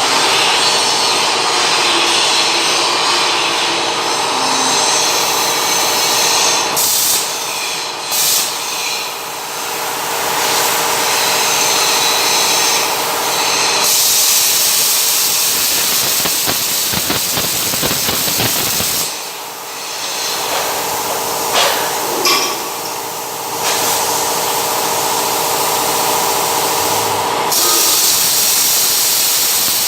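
Electric arc welding: the arc's loud, steady crackling hiss, breaking off and starting again a few times, with a steady hum underneath.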